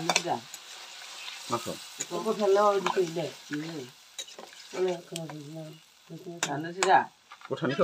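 A spatula stirring and scraping a thick frying meat curry in a metal kadai. Under a steady sizzle come repeated grating scrapes with a wavering pitch, and a few sharp clacks of the spatula against the pan.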